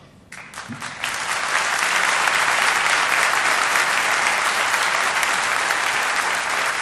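Audience applause: a few scattered claps swelling within about a second into steady, dense clapping that eases slightly near the end.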